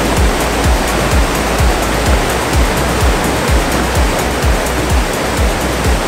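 Music with a steady beat of about two kick-drum thumps a second, over the loud, even rush of a waterfall.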